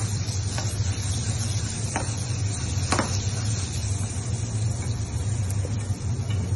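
Butter sizzling in a small frying pan as pieces of blanched bitter root brown in it, with a few light clicks of metal tweezers against the pan, over a steady low hum.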